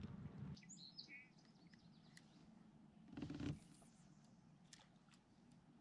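Quiet lakeside ambience with a few short, high bird chirps about a second in, and a brief rustle about three seconds in.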